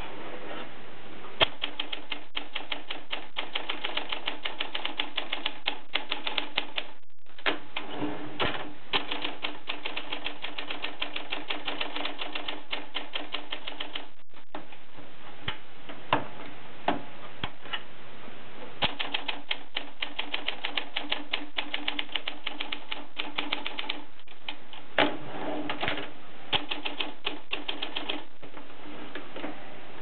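Olympia Traveller de Luxe manual portable typewriter being typed on: fast runs of keystrokes, the typebars striking the platen, breaking off briefly twice. The machine is in working order.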